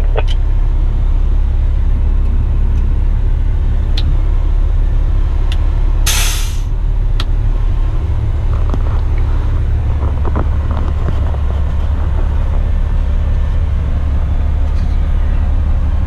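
Western Star tipper truck's diesel engine idling with a steady low rumble inside the cab. About six seconds in, a short burst of compressed-air hiss from the air brakes.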